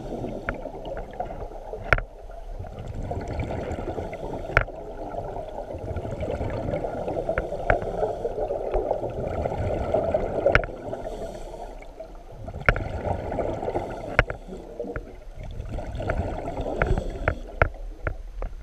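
Muffled underwater sound through a waterproof camera housing: a churning rumble of water that swells and fades every few seconds, with scattered sharp clicks.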